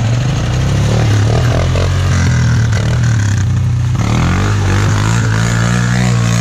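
Minibike and four-wheeler engines running under throttle on a muddy trail, the engine pitch rising and falling in the second half as the throttle is worked.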